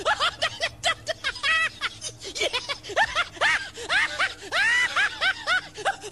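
Rapid high-pitched squeaky chirps, several a second, each rising and then falling in pitch like sped-up giggling, over music: a comic soundtrack.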